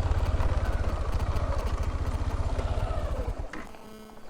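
Motorcycle engine running with a fast, even low pulse, then cut off with the ignition key about three and a half seconds in.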